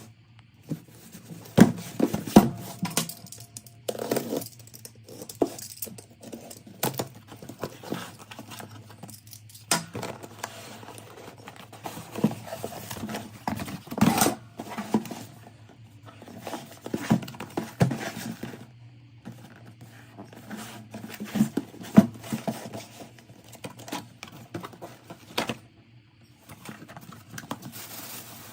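Packaging being opened and handled: irregular clicks, knocks and rustles of cardboard and plastic.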